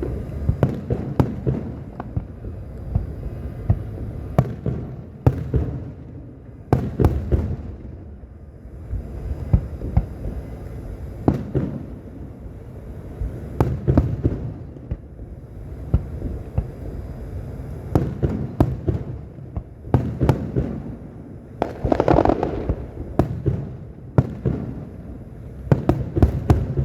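Fireworks display: aerial shells bursting one after another with sharp bangs, some in quick clusters, over a continuous low rumble of distant explosions.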